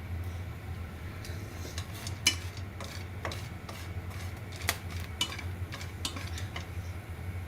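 Irregular sharp clicks and taps, like kitchen utensils or food against cookware, about a dozen of them with the sharpest a little over two seconds in, over a steady low hum.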